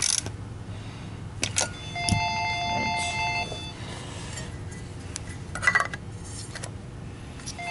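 An electronic telephone ringer rings about two seconds in for a second and a half and starts ringing again near the end. Sharp clicks and clinks come from vacuum motor parts being handled.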